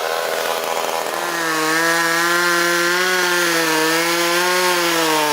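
Two-stroke chainsaw running at high revs, rough for about a second and then settling into a steady high engine note that wavers slightly.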